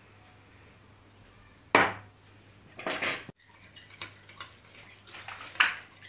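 A metal spoon clinking and scraping against a glass mixing bowl while stirring a thin liquid batter. There is a sharp clink a little under two seconds in and a short cluster of knocks around three seconds, then lighter repeated clinks with one loud clink near the end.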